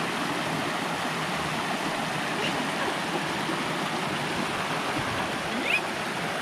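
Shallow mountain creek rushing steadily over rocks.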